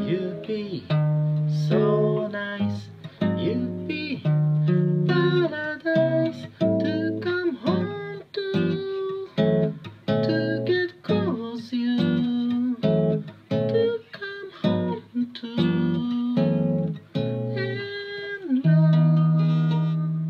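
A man singing while playing a nylon-string classical guitar. Near the end, a final chord is struck and left to ring, fading away.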